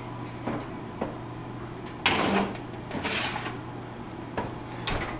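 Oven being loaded: the door opens and an aluminium baking sheet is slid onto the wire oven rack, giving two short metal scrapes about a second apart, plus a few clicks and knocks.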